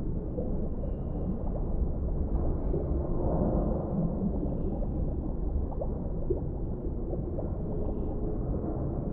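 Underwater ambience: a steady low rumble of water with faint gurgling and small scattered crackles, and a few faint held tones.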